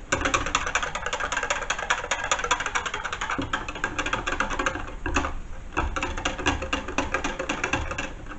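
Small wire whisk clattering rapidly against the sides of a plastic jug, whisking gravy granules into hot water. It stops briefly a little after five seconds in, then starts again.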